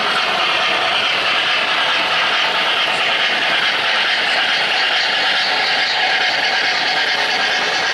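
O-gauge model train running along three-rail track, a steady, unbroken rolling noise.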